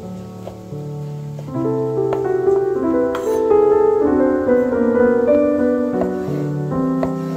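Background piano music, a slow melody of held notes. A few knife cuts through zucchini onto a wooden cutting board click faintly beneath it.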